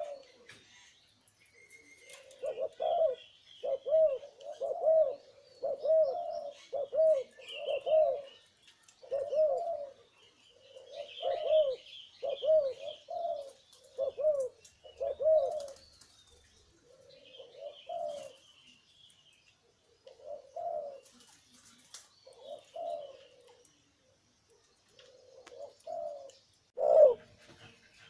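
Male zebra dove cooing: a long run of short, arched coo notes, about one a second, growing more spaced out in the second half, with faint higher chirps above it.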